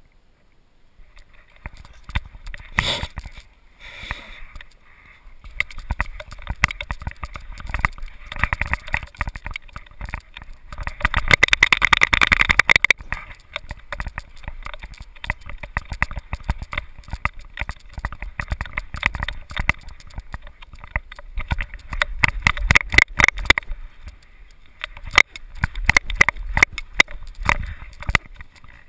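Knocks, rattles and scraping from a GoPro camera in its housing on a dog's back harness, jostled as the dog moves and rubbed by the dog's fur. There is a louder, busier stretch about eleven to thirteen seconds in.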